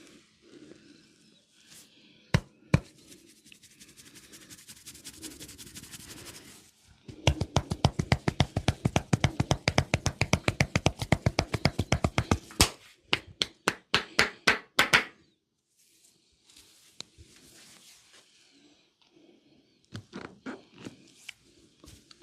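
Hands striking a person's head or back in percussion massage: a fast, even run of slaps, about seven a second for some five seconds, then a few slower, sharper strikes. Before it come two sharp cracks and a stretch of soft rubbing.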